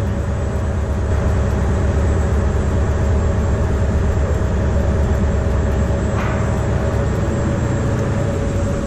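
Ferry's engines droning steadily while under way, a low hum with a few steady tones, over a constant rush of wind and water on the open deck.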